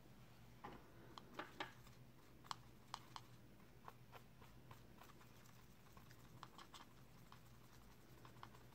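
Faint, irregular clicks and light taps of a paintbrush against a watercolour palette as green paint is mixed in its wells.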